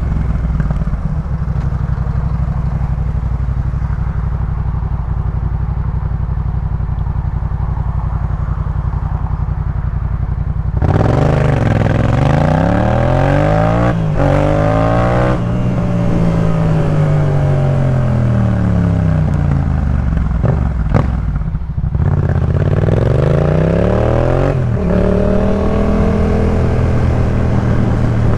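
Yamaha MT-07's 689 cc parallel-twin engine through a Jeskap K4 full aftermarket exhaust: a steady low drone for about ten seconds, then louder, its pitch rising and falling several times as the revs climb and drop, with a brief dip about two-thirds of the way through before it pulls up again.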